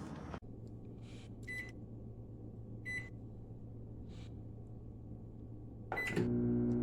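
Galanz retro microwave oven's keypad beeping three times, sharp single beeps a second or more apart, with softer button clicks between them over a low hum. Just after the last beep the oven starts running with a louder, steady hum.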